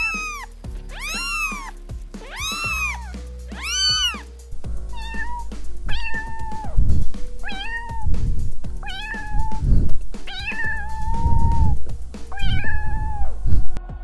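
Cat meowing again and again over background music: about four long meows that rise and fall in pitch, then, from about halfway through, a run of shorter, flatter meows roughly every second and a half.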